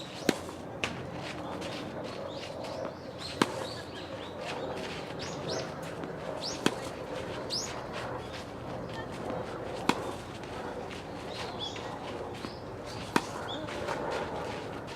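Tennis balls struck by rackets in a repeated drill: a sharp pock about every three seconds, five times, with short high chirps in between.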